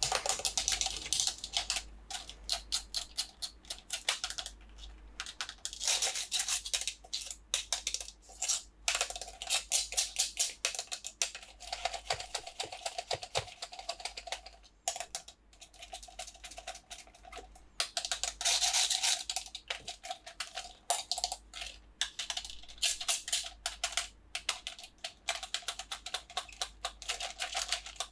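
Rapid crackling and clicking of toy packaging being handled and opened, coming in swells with brief pauses.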